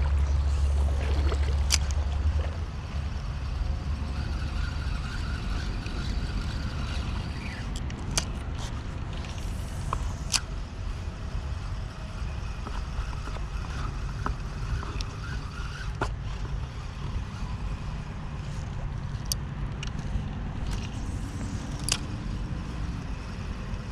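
Steady low rumble of wind on the microphone, heaviest in the first couple of seconds, under the soft whirr of a spinning reel being cranked to retrieve a lure, with a few sharp clicks.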